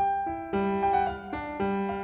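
Background music: a gentle piano melody, notes struck and held in an even rhythm.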